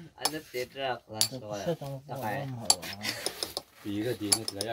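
Pointed metal rods scratching and tapping on a stone slab as a design is engraved into a gravestone, a string of short scrapes and clicks, with people talking over it.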